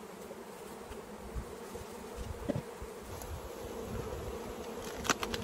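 Honeybees buzzing steadily around an opened hive. Near the end come a few sharp clicks as the wooden hive boxes are handled.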